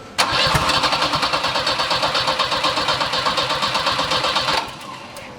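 Turbo Volvo 740's starter cranking the engine in an even run of pulses for about four seconds, then stopping. The engine tries to fire but does not start.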